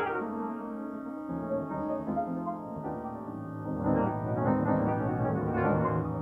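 Piano music with long held chords; deeper bass notes join about a second in.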